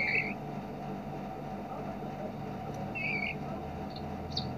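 Two short chirps from a small songbird, one at the start and one about three seconds later, over a steady low background hum.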